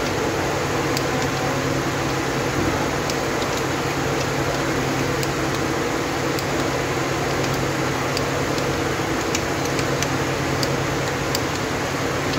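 A steady machine hum and whir, with faint short ticks scattered through it.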